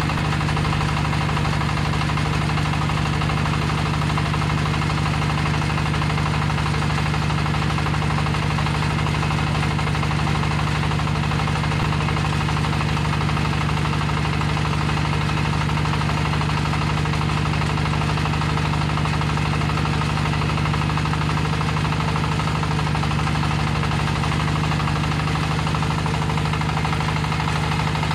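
25 hp diesel engine of a small hydraulic water well drilling rig running steadily at a constant speed.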